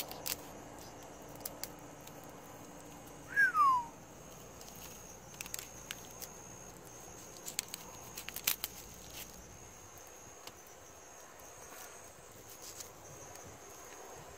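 A steady high trill of night insects, with scattered knife clicks and taps on a cutting board as a blackfin tuna is filleted. A single short, falling whistle-like chirp sounds a few seconds in and is the loudest thing heard.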